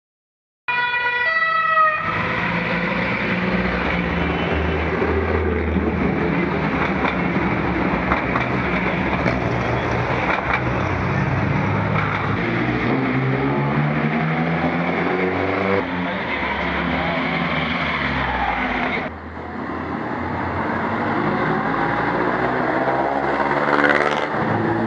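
Classic and modern rally cars driving past along a street: a steady din of engines and traffic, with engine notes rising and falling as cars rev and go by. The loudest pass comes about a second before the end. A brief siren-like tone sounds just after the start.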